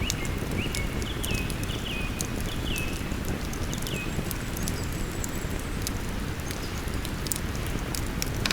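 Wood campfire crackling with scattered sharp pops over the steady low rush of a flowing river. Over the first four seconds or so a bird calls a run of short notes, each dropping in pitch.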